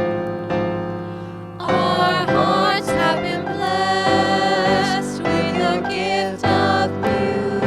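Music: a song with sung voices over sustained accompaniment chords. The voices come in about a second and a half in, with held, wavering notes.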